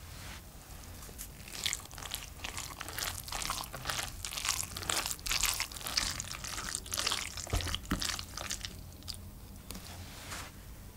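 Wooden spoon stirring grated zucchini, carrot and potato with flour in a glass bowl: rapid wet crunching and squishing of the shredded vegetables. It starts about a second and a half in and thins out near the end.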